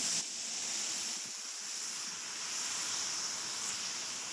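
Steady rain falling on the street and trees. At the very start, the hiss of a car's tyres on the wet road drops off sharply as the car moves away.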